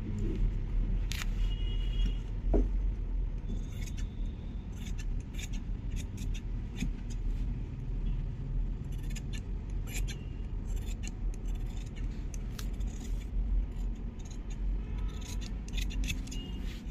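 Large tailor's shears cutting through cloth along chalk lines: repeated short snips of the blades closing, in irregular runs, with a steady low hum underneath.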